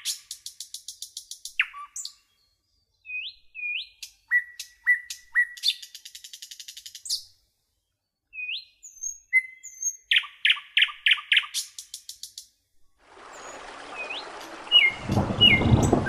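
Small songbird calls: bursts of rapid chirping trills and short upslurred whistles, separated by dead silence. Near the end a steady hissing noise with a low rumble comes in under the calls.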